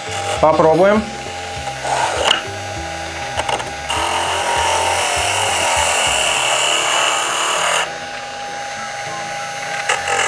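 Small electric motor of a PlayMake children's woodworking machine, set up as a disc sander, running with a steady whine. From about four seconds in to about eight, a wooden workpiece is pressed against the spinning sandpaper, adding a loud sanding hiss. Brief touches of the wood to the disc come about two seconds in and again at the very end.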